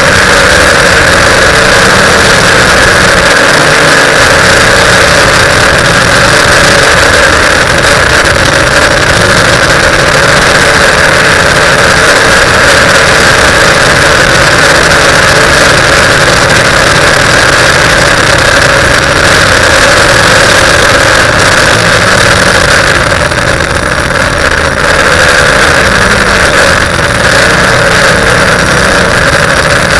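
TBS Discovery quadcopter's electric motors and propellers buzzing loudly and steadily in flight, with a sustained high whine, easing slightly for a moment about two-thirds of the way through.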